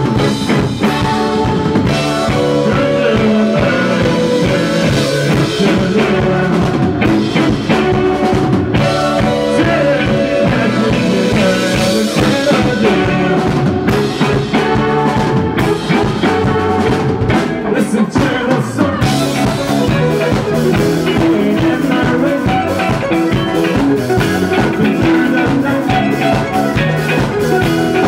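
A rock band playing live: electric guitars and a drum kit, with a man singing.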